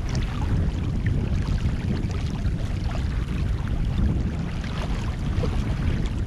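Wind buffeting the microphone over the rush and splash of water along a sailboat's hull as it moves through choppy sea; a steady, heavy rumble with small splashy crackles.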